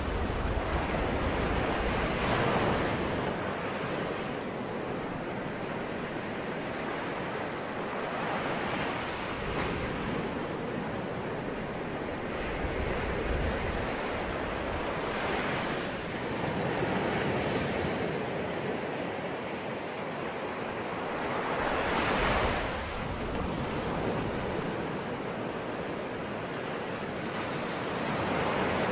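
Ocean waves breaking and washing ashore, a steady surf hiss that swells louder as waves break about every few seconds, with the strongest break a little before the end.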